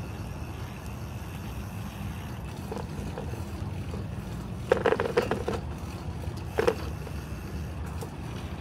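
Riding a bicycle on a paved path: a steady low rumble of tyres and wind on the microphone, with about a second of rattling roughly halfway through and a shorter rattle just after.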